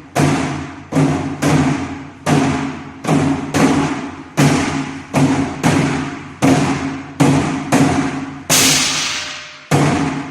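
Nanta drum struck in a steady 'train rhythm' (gichajangdan) pattern, about two to three ringing strokes a second with short pauses between groups. A few louder, brighter strokes come near the end.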